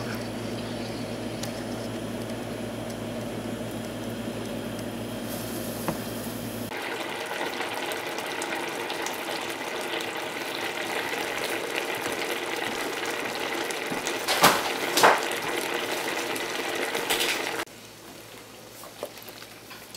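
Vegetables and water cooking in an enamelled cast-iron pot on a gas burner: a steady bubbling, hissing simmer whose tone shifts at about seven seconds in and drops quieter near the end. Two sharp knocks sound about two-thirds of the way through.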